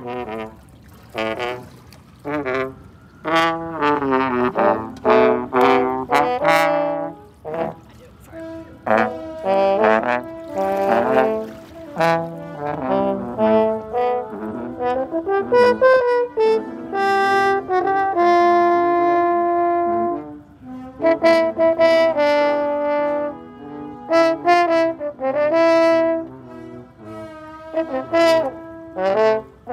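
French horns playing a tune, short phrases early on and long held notes in the middle.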